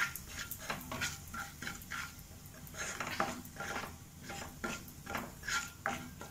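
Black plastic spatula stirring and scraping chili powder and turmeric around hot oil in a nonstick kadhai: irregular scraping strokes, about one or two a second, over a faint sizzle of the spices frying on a low flame.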